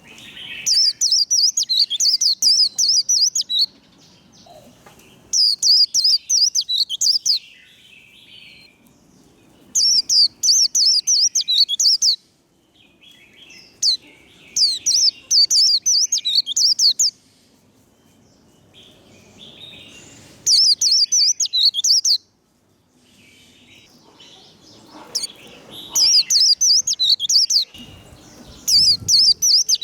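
White-eye (vành khuyên) singing its rapid, high twittering 'líu' song in repeated bursts of two to three seconds, about seven in all, with softer chattering calls in the gaps between.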